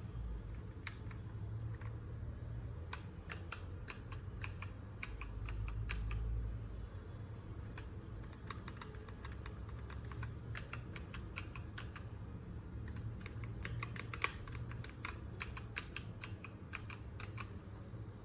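Typing on an EvoFox Katana X2 TKL mechanical keyboard with red linear switches: runs of quick keystroke clicks with short pauses between, over a steady low hum.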